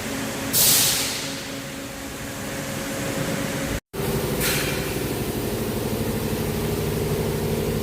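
Steady hum of distillery machinery, with a short loud hiss about half a second in. After an abrupt cut near the middle the hum is louder, with a fainter hiss shortly after.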